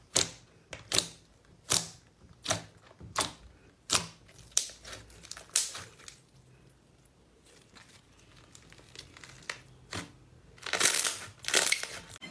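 Slime being worked by hand, making sharp crackling pops roughly every three-quarters of a second, then a quieter stretch of small clicks and two longer crackles near the end.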